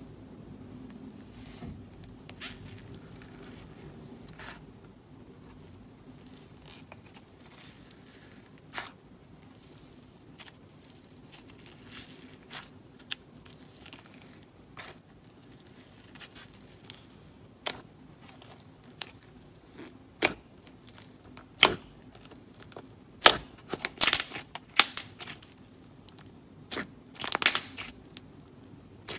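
Clay slime being squeezed, peeled and mixed by fingers in a plastic tub: scattered crackles and sharp pops. They come more often and louder from about halfway through, crowding together near the end.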